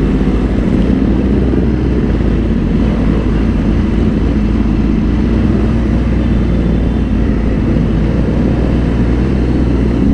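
Motorcycle riding along at a steady pace, its engine note holding level with no revving or shifting.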